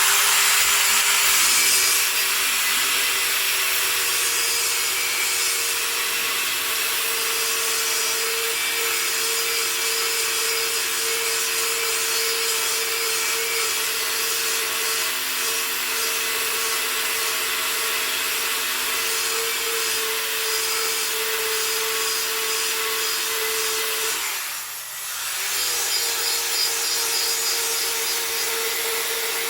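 Cordless Einhell belt file sander running with its belt grinding a weld off metal: a steady sanding rasp over a constant motor whine. The sound drops briefly near the end, then picks up again.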